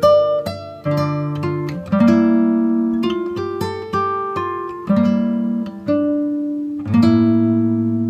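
Background music: a plucked string instrument, guitar-like, picking notes and chords that ring and fade, a new note or chord about every half second to a second.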